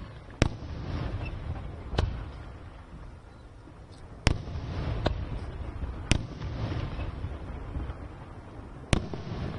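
Aerial firework shells bursting in the sky: about six sharp bangs at uneven intervals, each followed by a low rolling rumble of echo.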